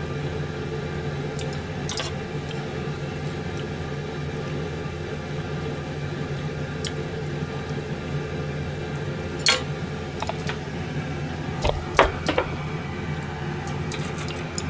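Chopsticks clicking against a small ceramic bowl and a metal pan as soup ingredients are picked out: a few scattered light clinks, the loudest three in quick succession near the end, over a steady mechanical hum.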